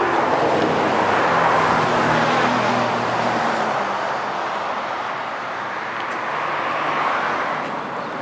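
Road traffic going by: tyre and engine noise of passing vehicles that swells, eases in the middle and swells again near the end.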